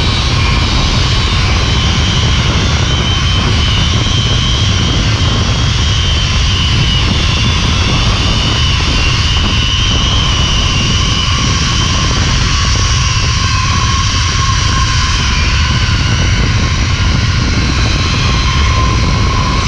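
Zipline trolley's pulley wheels running fast along the steel cable with a wavering whine, over heavy wind rumble on the microphone. A lower whine grows stronger in the second half.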